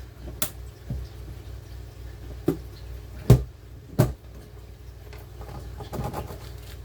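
Handling noise of items being unpacked from a box: about four sharp knocks and taps with softer rustling between them, over a low steady hum.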